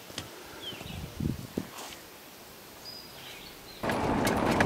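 Faint woodland ambience with a few short, high bird chirps, then, about four seconds in, an abrupt switch to the much louder, steady engine and road noise inside a Chevrolet pickup's cab as it drives a dirt road.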